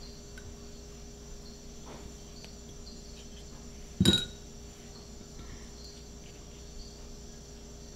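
Steady insect chorus with high, held chirring tones. About four seconds in there is one short, sharp clink or knock.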